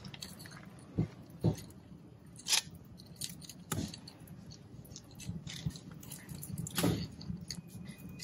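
A handful of separate sharp clicks and knocks, spread irregularly over several seconds.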